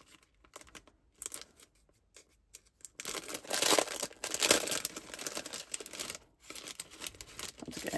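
Clear plastic bag crinkling and rustling as a thin metal cutting die is worked out of it: scattered crackles at first, then denser, louder crinkling from about three seconds in, with a short pause near the end.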